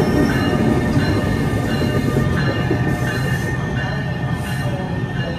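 NJ Transit electric train, a locomotive with multilevel coaches, rolling past: a steady rumble with several high, steady whining tones above it, slowly fading.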